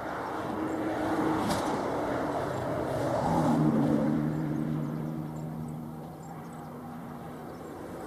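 An engine passing, its low hum swelling about three to four seconds in and then fading.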